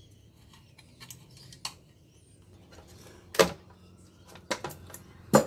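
Scattered clicks and clattering knocks of metal parts as a Fronius solar inverter is taken apart by hand, with two sharp, louder knocks, one about three and a half seconds in and one near the end.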